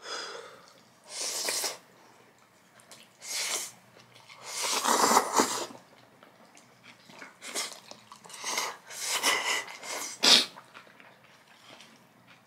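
People slurping bacon carbonara fire noodles and their sauce from small bowls: a run of about six separate slurps, the longest about halfway through and a short sharp one near the end.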